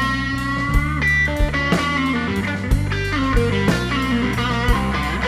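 Live slow blues band playing an electric guitar fill between vocal lines: a long held note that bends slightly upward, then a run of quicker notes, over bass guitar and a slow steady drum beat.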